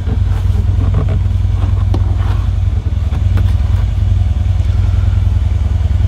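Harley-Davidson V-twin motorcycle engine running steadily nearby, a loud, even low rumble, with a few faint clicks over it.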